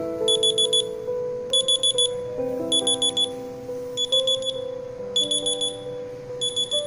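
Smartphone alarm beeping: groups of four or five rapid high beeps, repeating about every second and a bit.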